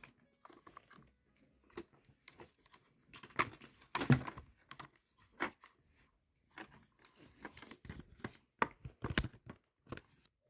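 Hard plastic toy track pieces being handled and fitted together: scattered clicks, taps and clatters, with a louder cluster about four seconds in.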